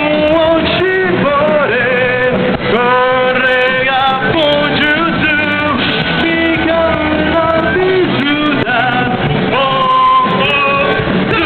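A live rock band playing with sung vocals over the instruments, the melody held in long notes.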